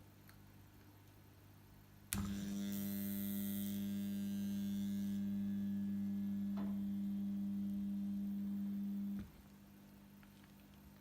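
Microwave oven transformer switched on with a click about two seconds in, giving a loud, steady mains hum for about seven seconds before it is switched off. A high hiss rides over the first few seconds of the hum.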